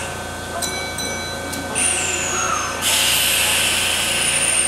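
Compressed air hissing out of a standing Kintetsu electric train's pneumatic system, each release with a falling high whistle: a short burst about two seconds in, then a longer, louder one from about three seconds in. A brief steady tone sounds before the first burst.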